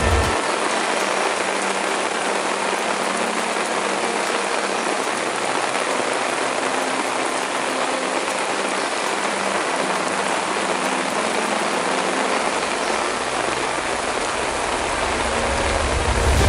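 Heavy rain falling steadily, a dense, even hiss of rain on the road and truck. A low rumble comes in near the end.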